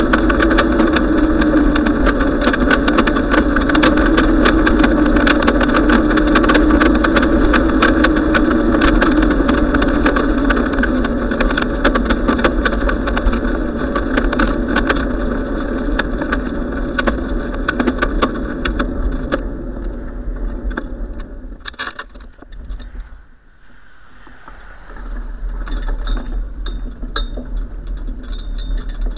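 Bicycle rolling along a paved trail: wind rushing on the microphone with a steady hum and many small rattling clicks. The noise dies away about three quarters of the way through as the bike slows, then returns more quietly.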